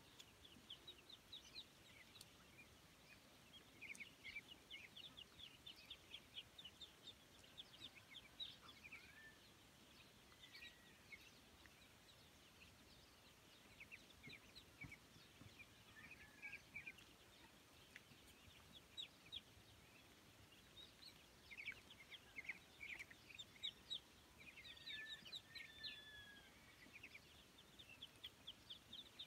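Faint peeping of a flock of ducklings and chicks: quick runs of short high notes, with a few longer downward-sliding calls mixed in.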